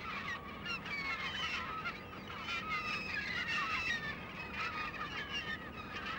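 A flock of gulls calling: many short, overlapping cries, many of them falling in pitch.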